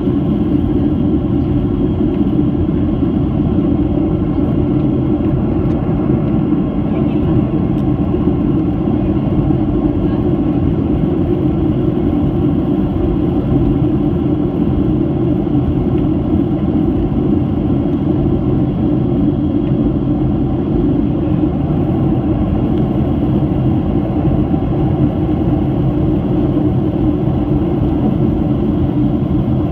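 Steady cabin noise of a Boeing 737-800 in flight: the low, even roar of its CFM56 engines and the airflow past the fuselage, heard from inside the passenger cabin, unchanging throughout.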